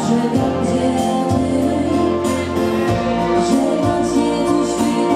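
A wedding band's song playing, with a steady drum beat under bass and melody lines.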